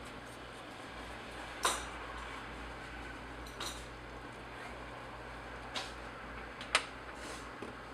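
A steady low hum with four short, sharp clinks spread through it, the loudest one near the end.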